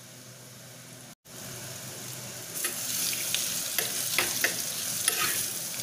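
Sliced onions and curry leaves sizzling in hot oil in an unglazed clay pot. The sound drops out for a moment about a second in. From about two and a half seconds in, a spoon stirs them, scraping against the pot in short strokes, and the sizzle grows louder.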